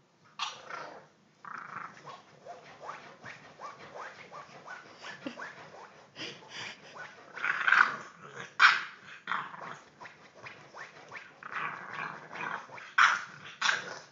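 Three-month-old English bulldog puppy growling in play, a run of short, irregular growls and grunts, with a few louder ones about halfway through and again near the end.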